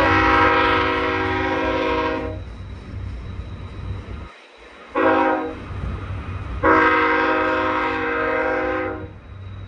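Diesel locomotive's multi-chime air horn sounding three blasts, long, short, long, typical of the closing part of a grade-crossing signal. A steady low rumble runs underneath.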